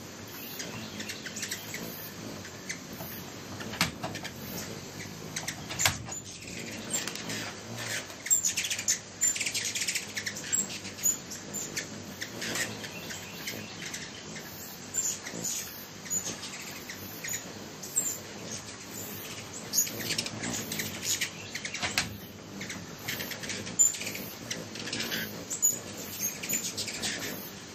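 Hummingbirds at a feeder giving quick, high, squeaky chips and twittering chatter in irregular bouts.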